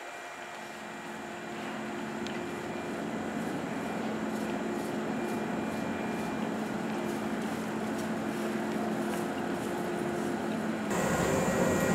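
Steady machine hum with a few held tones from a 115-series electric train standing at the platform with its equipment running. Near the end the sound turns abruptly louder and noisier.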